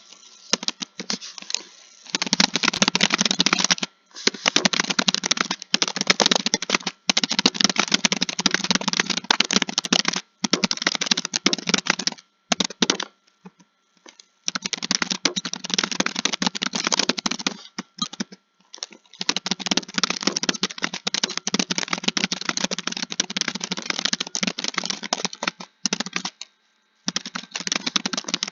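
Computer keyboard typed on quickly, a dense run of key clicks in stretches of several seconds broken by brief pauses, with a longer pause of about two seconds near the middle.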